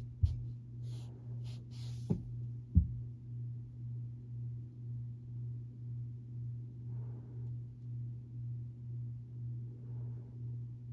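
Monte Carlo Premier ceiling fan running, its motor giving a steady hum that pulses at a regular rate. A few sharp knocks come in the first three seconds, the loudest near the third second.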